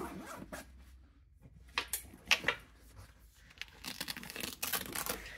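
A KF Concept 25L nylon camera backpack being handled as its side access zipper and flap are worked open: fabric rustling and scraping, with a few short sharp scrapes about two seconds in and a denser stretch of rustling near the end.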